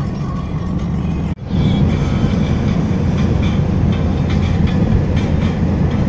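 A moving vehicle's steady low rumble with light rattling, cutting out abruptly about a second in and coming back louder.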